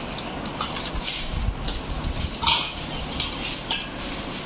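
Knife peeling an apple: short, crisp scraping strokes as the blade cuts through the skin, over a steady background rumble. A brief louder sound comes about halfway through.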